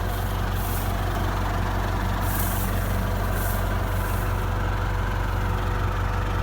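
Tractor engine idling steadily with an even low pulse, with a few brief hisses over the top.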